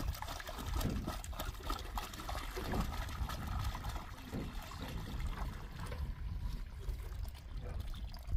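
Water pouring from a plastic jerrycan into a pool in a heap of sand and cement mix, trickling and splashing, the stream thinning in the last couple of seconds, under a low rumble.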